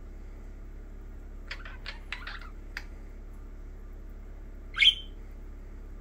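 Budgerigars calling: a quick run of five or six short chirps about a second and a half in, then one much louder, sharp call near the end.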